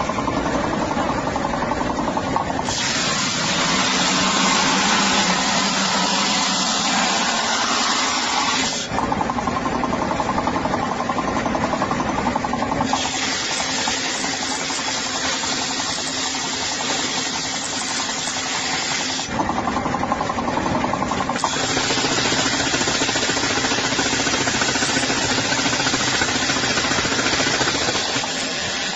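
Motor-driven tyre-processing machinery running steadily, a mechanical hum with a dense, hissing noisy layer on top. The sound changes abruptly several times, louder and brighter, then duller, then louder again.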